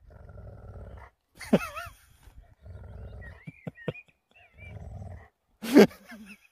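Alaskan malamute grumbling in several short low growly rumbles, with a brief higher wavering "woo" about one and a half seconds in and a sharp loud bark near the end.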